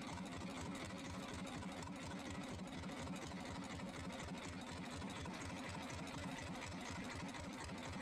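Small boat engine idling, heard faintly as a fast, even putter.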